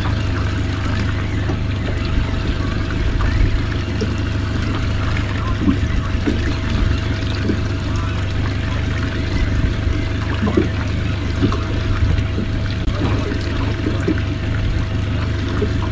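Water lapping and trickling against a small boat's hull over the steady hum of an idling outboard motor.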